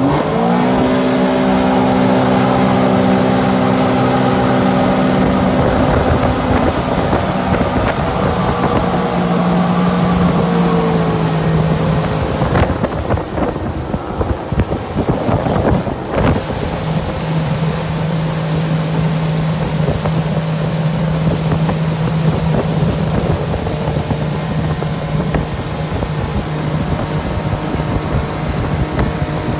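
Tow boat's engine running steadily under way while pulling a wakeboarder, its pitch dropping slightly about a third of the way in, then holding. Wind on the microphone and the rushing wake are mixed in throughout.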